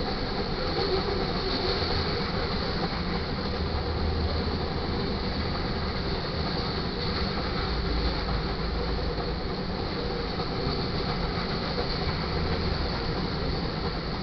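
Freight train of covered hoppers and tank cars rolling past at speed, a steady rumble and rattle of steel wheels on the rails.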